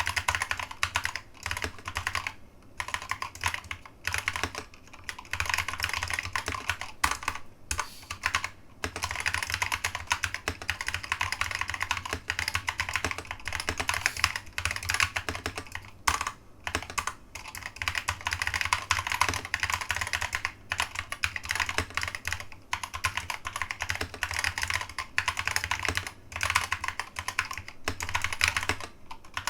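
Typing on a keyboard with new-old-stock Alps SKCC green switches: a fast, continuous run of keystrokes with a few brief pauses.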